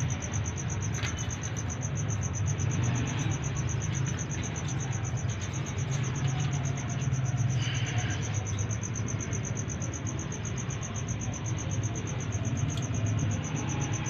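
Cricket trilling steadily: a high, fast-pulsing trill that does not let up, over a low steady hum.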